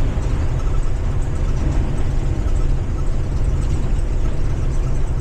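Blue Bird Vision school bus driving, its Ford 7.3 litre gasoline V8 running at a steady pace with road noise, as a steady low rumble.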